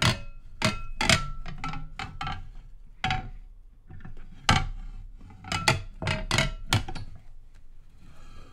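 Small hand-cranked roller printing press being cranked: an irregular string of clunks and clicks, several with a short metallic ring, as the steel bed and padded printing plate pass under the roller.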